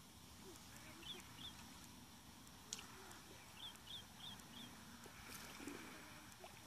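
A small bird calls faintly over quiet open-air hiss: two short high chirps, then about two seconds later a quick run of four more. There is a single light click between them.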